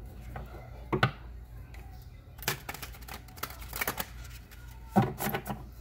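A deck of oracle cards being shuffled by hand: irregular quick flicks and taps as the cards are cut and knocked together, thickest in a run from about two and a half to four seconds in and again near the end.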